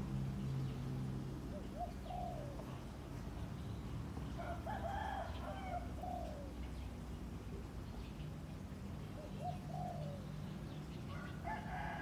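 Roosters crowing several times, with other birds calling. A low steady hum sounds briefly at the start and again near the end.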